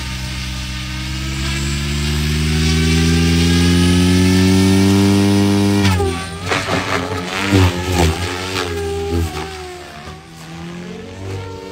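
Radio-controlled helicopter spooling up on the ground, its motor and rotor hum climbing steadily in pitch for about six seconds. The pitch then drops suddenly and wavers up and down with uneven surges as it lifts off and flies.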